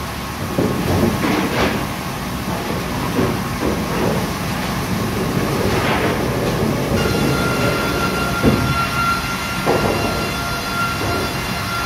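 Sawmill infeed conveyors of a MEBOR VC 900 E16 multirip saw line running: chain transfer and powered rollers carrying a board, with clattering knocks over a steady machine rumble. A steady whine joins about seven seconds in.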